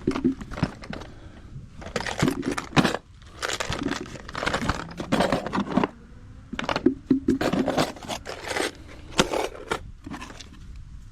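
Hand tools being handled and set down: an irregular run of clinks, knocks and scrapes with some rustling.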